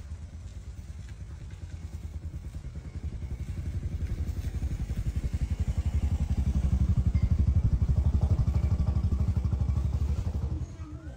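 A small engine running with a rapid, even pulse. It grows louder over several seconds, then drops off suddenly near the end.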